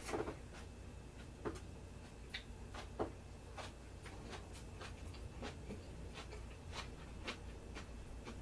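Eating sounds: light clicks and taps of disposable wooden chopsticks against a bowl and plate, with chewing, scattered a few times a second and faint.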